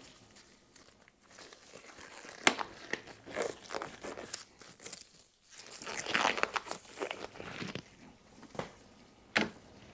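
Black rubber gloves being pulled onto the hands: irregular crinkling and rubbery rustling, with a sharp snap about two and a half seconds in and another near the end.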